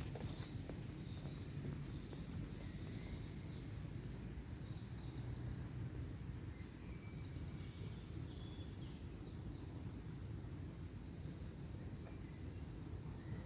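Small songbirds chirping and trilling, many short calls scattered throughout, over a low steady rumble.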